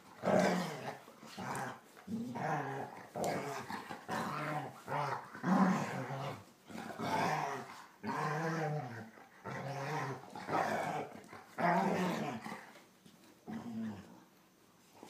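German Shorthaired Pointers growling in play as they wrestle: a string of short growls, roughly one to two a second, dying down near the end.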